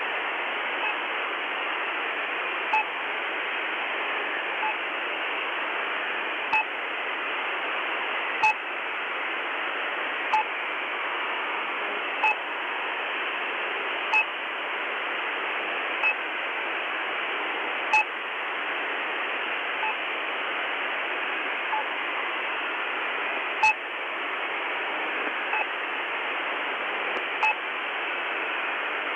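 Shortwave radio in upper sideband receiving the "New Pip" signal on 6218 kHz: short two-tone pips about every two seconds over a steady band of static hiss, some pips stronger than others.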